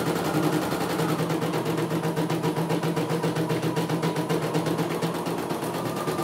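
CNY E900 portable computerised embroidery machine stitching a design, its needle bar running in a fast, even rhythm of strokes over a steady motor hum.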